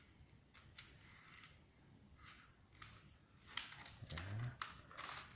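Scattered light plastic clicks and taps from handling a spring airsoft pistol (MP 900) while BBs are loaded into it.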